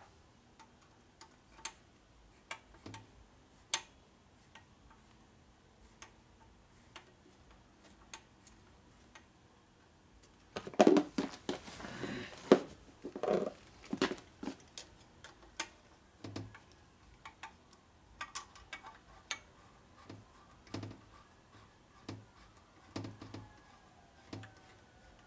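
Scattered light metallic clicks and taps of hand tools and small parts against a Harley-Davidson Ironhead Sportster engine case while the oil pump is fitted and its bolts started with a hex driver, with a denser run of louder knocks and rattles about eleven to fourteen seconds in.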